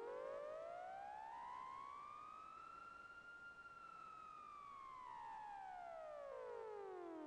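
Barking Wombat software synthesizer, a freeware subtractive VST, playing one sustained note rich in overtones that glides slowly up in pitch for about three seconds and then slowly back down.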